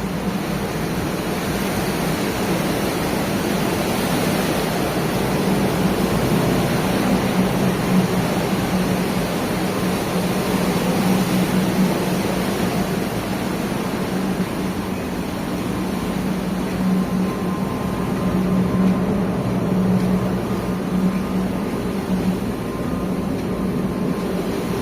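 Steady drone of ship's machinery with a low hum, under a constant wash of wind and rushing noise.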